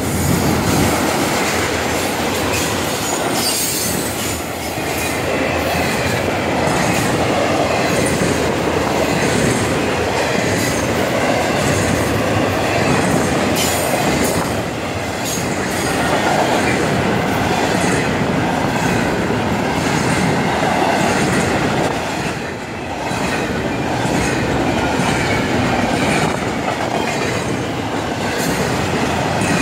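Florida East Coast Railway intermodal freight train's loaded container and double-stack well cars rolling past at close range: a steady rumble of steel wheels on rail with repeated clicking as the wheels cross rail joints.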